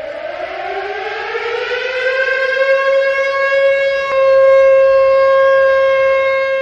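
Warning siren winding up: its pitch rises for about four seconds, then it holds a steady high wail that gets louder.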